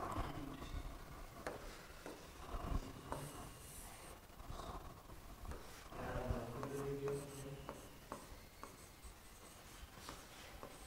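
Pen writing on a display board: faint scratchy strokes with light taps as each word is written.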